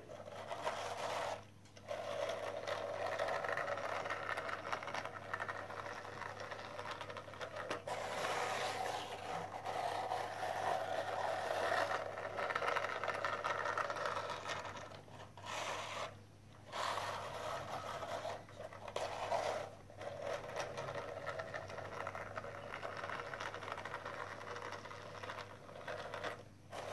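Small battery-powered toy truck's motor and gears whirring steadily as the truck rolls across a tile floor, cutting out briefly several times.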